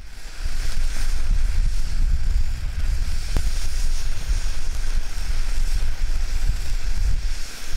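World Class All Star firework fountain burning and spraying sparks: a steady rushing hiss over a low rumble, building up within the first second.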